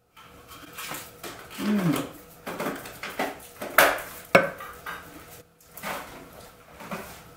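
Thick protein shake poured from a plastic blender jar into a glass, with irregular clinks and knocks of jar and glass; two sharp knocks come about four seconds in.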